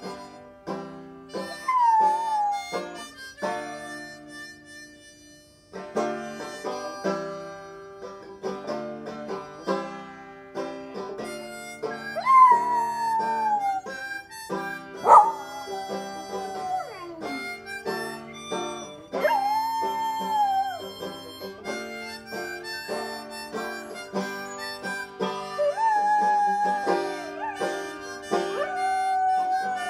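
Australian cattle dog howling along to harmonica and banjo: about six long howls, each sliding down in pitch, over a steady harmonica melody with plucked banjo notes.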